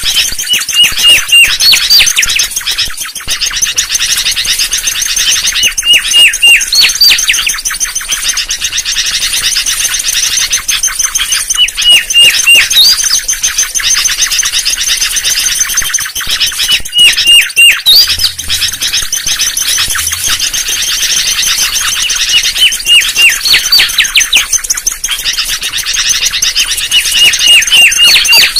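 Mangrove whistler song, played as a bird-trapping lure call. A phrase of a few short clear whistled notes is followed by rising upswept whistles, and the phrase repeats about every five to six seconds. A dense high twittering runs behind it.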